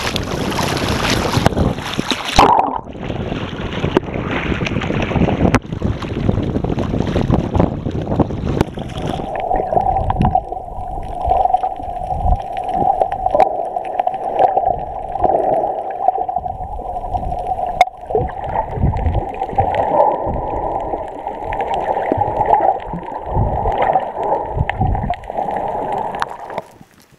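Splashing water and wind on an action camera at the sea surface, then the dull, muffled sound of water moving and gurgling around the submerged camera housing, with irregular deep thuds.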